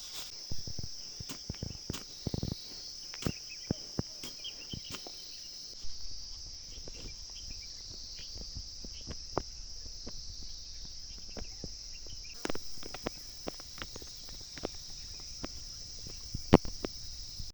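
Insects chirring in a steady high band, with many scattered clicks and knocks over it. One sharper knock near the end is the loudest sound.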